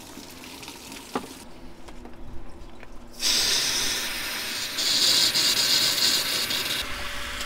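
Tap water from a garden hose rushing through the radiator as it is flushed, a loud hiss that starts about three seconds in, gets stronger about two seconds later and eases off near the end.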